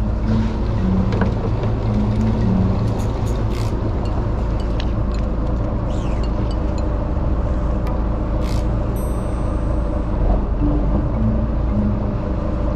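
Background music with a simple low melody over a steady low rumble, with scattered faint clicks.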